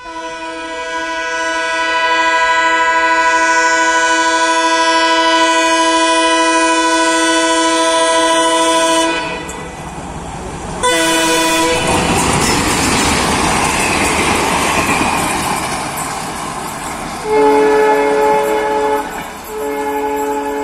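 Diesel locomotive horn sounding one long blast of about nine seconds and then a short second blast. The train then passes close by with a loud rush of wheel and rail noise. It ends with two more horn blasts at a lower pitch.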